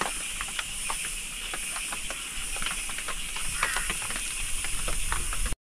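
Wood fire crackling under an iron pan of flatbread, with many small scattered crackles over a steady hiss of rain.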